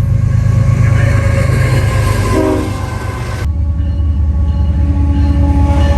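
Train horn blowing over the heavy rumble of a passing train. About three and a half seconds in the sound cuts abruptly to another horn blast over a similar rumble.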